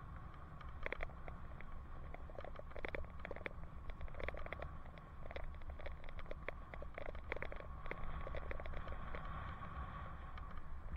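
Wind rumbling on a helmet camera's microphone while cycling, with irregular light clicks and rattles as the bicycle rolls over the pavement.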